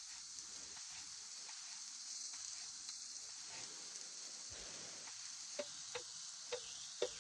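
Diced onion sizzling gently in a frying pan. About five seconds in, a knife starts tapping on a chopping board, about two cuts a second, as mushrooms are sliced.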